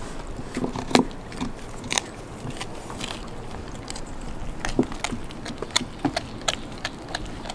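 A Belgian Malinois dog gnawing a raw beef rib: irregular clicks and crunches of teeth on the bone.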